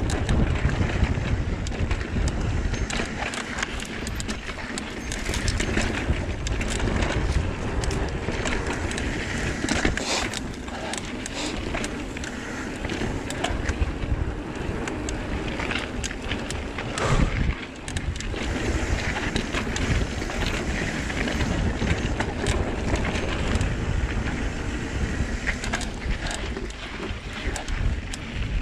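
Trek Fuel EX 7 full-suspension mountain bike descending dirt singletrack at speed: tyres rolling and the bike rattling, with many sharp clicks and knocks over rough ground. Wind rushes steadily over the microphone.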